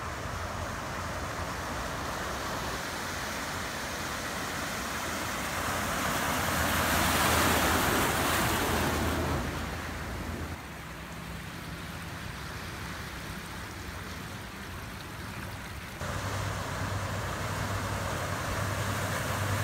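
Vehicles driving through deep floodwater: the rush of water pushed aside and sprayed up by a pickup's bow wave, loudest about seven to nine seconds in. Near the end a steady low engine hum joins the water as a van ploughs through.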